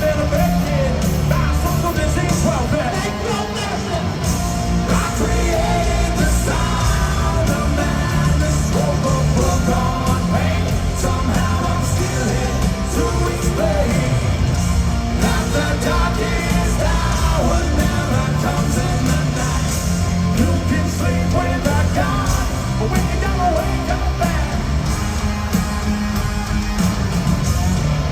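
Live hard rock band playing loud, with a singer singing and yelling over the full band.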